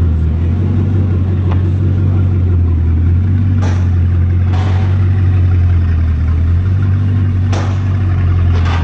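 A steady, deep engine hum, like a vehicle idling, with a few light knocks and rustles scattered over it.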